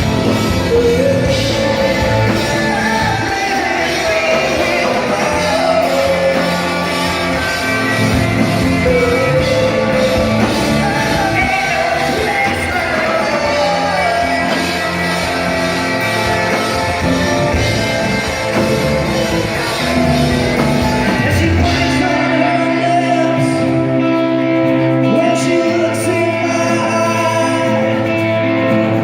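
Live rock band playing with a singer, heard in a large hall. About three-quarters of the way through, the deep bass drops out and held chords carry on.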